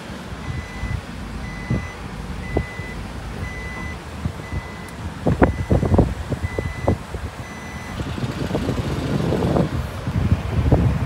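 A vehicle's reversing alarm beeps one high tone over and over, a little faster than once a second, and stops about eight seconds in. Under it are a low engine rumble and scattered knocks and clatter.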